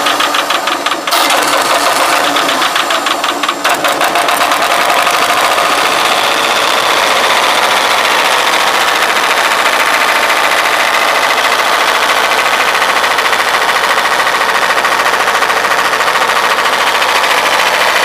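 Diesel engine on a 1986 Ford F8000 vacuum truck, just restarted and idling: it runs unevenly for the first few seconds, then settles into a steady idle.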